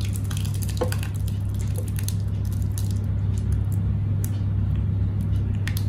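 Spoon stirring and lifting thick sheer khurma, a milky vermicelli pudding, in a glass bowl: soft wet squishing with a few light clicks, over a steady low hum.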